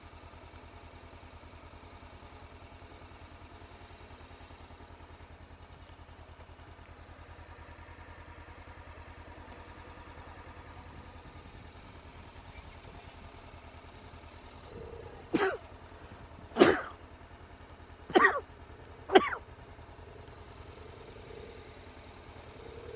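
Motorcycle engine idling with a steady low rumble. About two-thirds of the way in, a person coughs four times in quick succession, loud and close, about a second apart.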